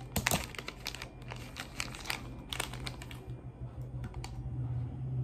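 A plastic ice cream bar wrapper crinkling as it is peeled and pulled off the bar. The rustling comes in quick bursts and is loudest near the start, then thins out after about three seconds, over a steady low hum.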